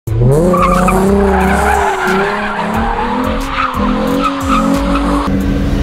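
Ford Mustang engine revving hard, its pitch climbing at the start and then held high, while the rear tyres squeal as the car slides sideways on asphalt. The sound changes abruptly near the end.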